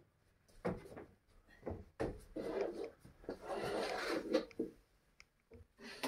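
A string mop on a wooden handle rubbing and scuffing over a laminate floor and being pushed under a sofa. The strokes come in irregular bursts, some of them with light knocks.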